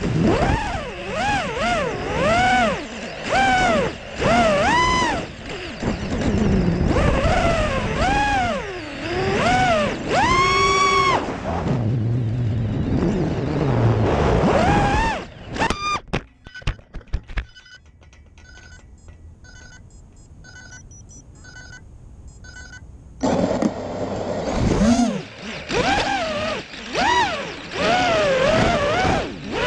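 Brushless motors and propellers of a 5-inch FPV quadcopter whining, their pitch rising and falling with the throttle, heard from the onboard camera. About fifteen seconds in there is a clatter of sharp knocks and the motors stop, leaving faint, evenly spaced beeps for about six seconds, then the motors spin up again.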